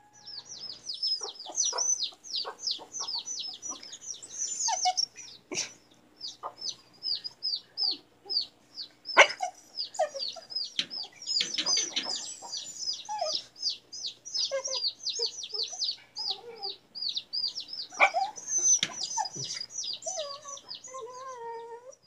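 A bird chirping rapidly and without pause, several short, high, falling notes a second, with a few scattered knocks. Near the end there is a lower, drawn-out falling whine.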